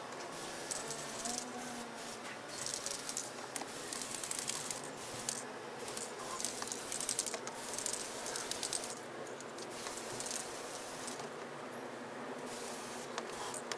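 Aerosol spray paint can hissing in repeated bursts with short pauses between passes, along with rattling from the can's mixing ball.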